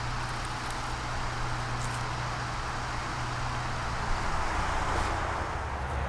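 Mini skid steer engine running steadily with a low, even hum.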